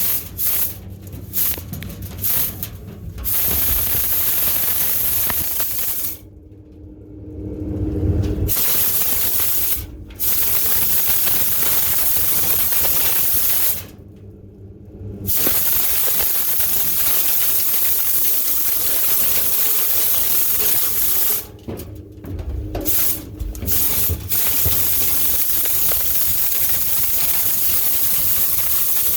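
Loud rush of air from dryer-vent cleaning equipment blowing through the duct. The hiss runs in long stretches and cuts out briefly about six, ten, fourteen and twenty-two seconds in.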